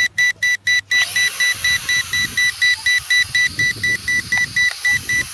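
Quadcopter remote control beeping rapidly, about five short high-pitched beeps a second. From about a second in, a steady hiss and rumble run beneath the beeps.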